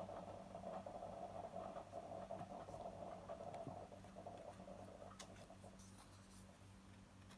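Faint scratchy rubbing for about the first two-thirds, then a few light clicks, over a steady low electrical hum.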